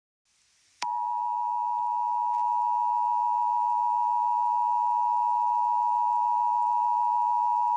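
Emergency alert attention tone: a single loud, unwavering electronic tone that starts abruptly after a moment of silence, less than a second in, and holds steady without a break. It marks the start of an emergency alert broadcast.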